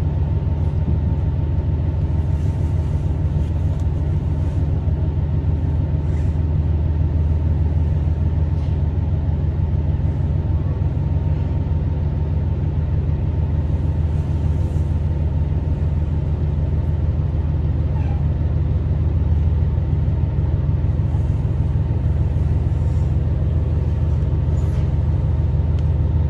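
Steady low drone of a Tosa Kuroshio Railway 9640-series diesel railcar, heard from inside the passenger cabin, as the train slows into a station.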